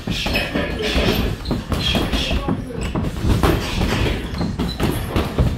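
Boxing gym training sounds: irregular thuds and slaps of gloved punches on heavy bags, with shoes shuffling on a wooden floor.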